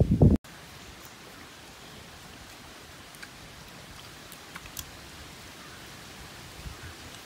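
A loud low rumble cuts off abruptly about half a second in. It gives way to a steady hiss of outdoor background noise with a few faint clicks.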